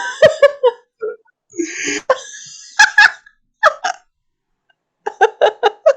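A person laughing in short broken bursts, ending in a quick run of rapid pulses near the end.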